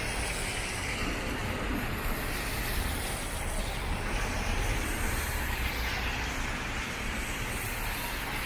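Steady city traffic on a rain-wet road: passing cars and scooters with their tyres hissing on the wet asphalt, over a low engine rumble.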